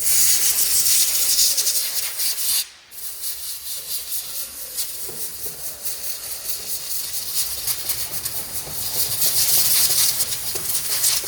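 Loud hissing of a pressurised jet, starting abruptly, breaking off briefly just under three seconds in, then running on steadily to the end.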